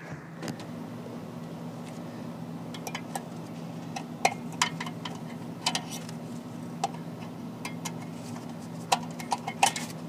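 Crinkling and crackling of a crumpled foil sheet handled by a gloved hand, in scattered short bursts from about three seconds in. Under it runs a steady low machine hum.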